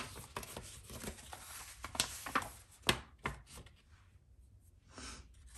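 Unboxed items being set out on a tabletop: several sharp light knocks and clicks as things are put down, amid softer rustling of handling.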